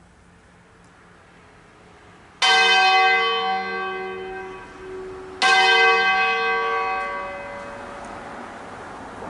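Bronze church bells from a six-bell ring in D-flat, cast by Crespi of Crema in 1885, struck twice about three seconds apart in a slow funeral concerto. Each stroke rings on and fades slowly.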